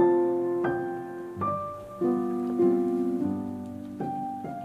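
Gentle background piano music: notes and chords struck about every two-thirds of a second and left to ring down.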